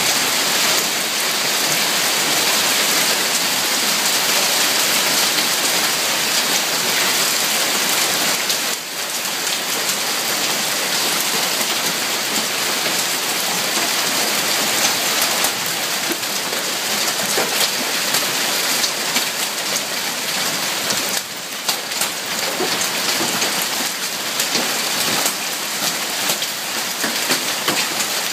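Heavy hail of small ice pellets falling hard on the ground, cars and roof: a loud, dense, steady hiss of countless tiny impacts, easing briefly twice.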